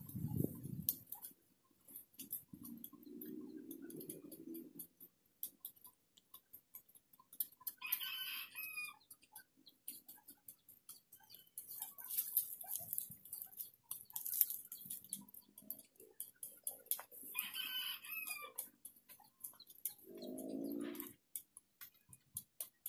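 A rooster crows twice, each crow about a second long, several seconds apart. Under it runs a light rustling and snapping of weeds being pulled by hand.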